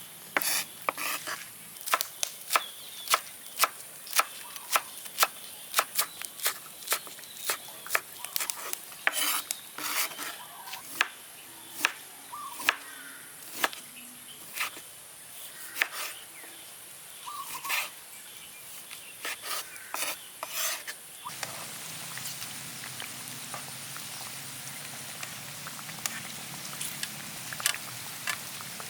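Metal cooking utensils clink and knock irregularly against a pan. After about twenty seconds a steady sizzle of pork belly deep-frying in oil takes over.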